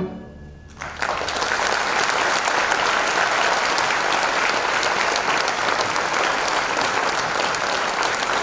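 The orchestra's last chord cuts off right at the start, and about a second later audience applause breaks out and carries on steadily.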